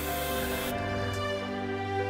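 Instrumental background music with held notes. Under it, an airbrush sprays paint with a soft hiss that stops about a second in.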